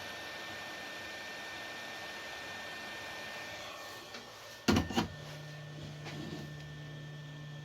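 Hot-air gun of a soldering station blowing steadily onto the plastic motor cooling fan, fading out a little over three seconds in. Then come two sharp knocks and a low steady hum.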